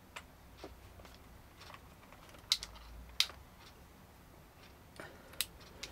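Scattered small clicks and taps of steel precision screwdriver bits and a bit adapter being handled and picked from their plastic case, with two sharper clicks about two and a half and three seconds in.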